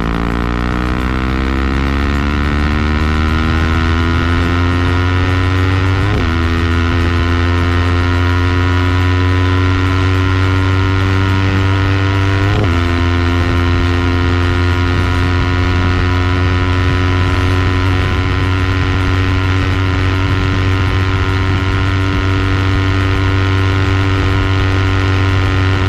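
Motorcycle engine under way, its pitch climbing slowly as it pulls. Two brief breaks come about 6 and 12 seconds in, and after them it runs at a steady pitch.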